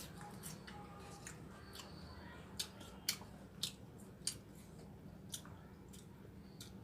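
A person eating noodles up close: chewing, with sharp wet mouth clicks every half second to a second over a low steady hum.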